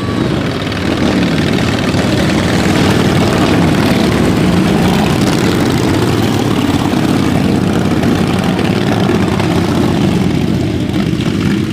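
A field of racing ride-on lawnmowers with their small engines running together, the overlapping engine notes rising and falling as the machines go round the track.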